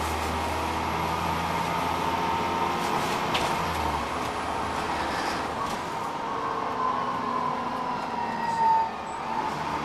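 Dennis Trident bus's engine and three-speed Voith gearbox, heard inside the bus while it drives: a low engine drone under a steady gearbox whine. Near the end the whine grows louder and falls slightly in pitch, then cuts off abruptly.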